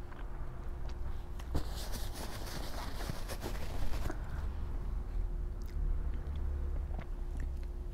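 Close-miked chewing and eating sounds, with scattered sharp clicks and a crunchier stretch about two to four seconds in.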